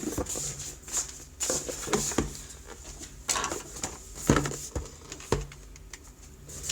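Small white cardboard box being handled: scattered light taps, knocks and rustles, with a few sharper knocks after about four seconds, over a faint steady hum.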